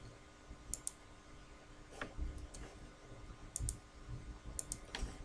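Computer mouse clicking: a few sharp clicks, some in quick pairs, over a faint steady hum.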